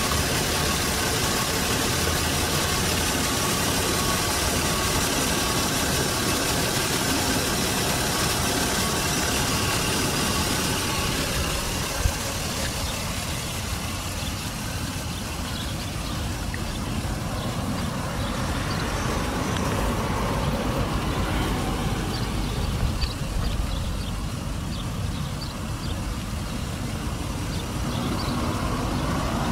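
Toyota 1JZ 2.5-litre inline-six idling steadily. It is heard up close at first and a little fainter after about eleven seconds, with a single sharp click about twelve seconds in.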